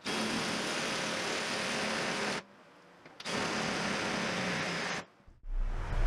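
Cordless drill turning a hole saw at low speed, cutting through the steel tank of a waste oil heater: a steady cutting noise in two stretches of about two seconds each, each stopping abruptly.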